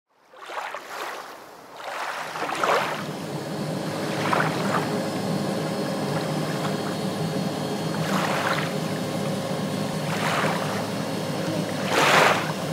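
Seaplane's propeller engine running with a steady low drone, with several brief rushing swooshes over it every couple of seconds; the loudest comes near the end.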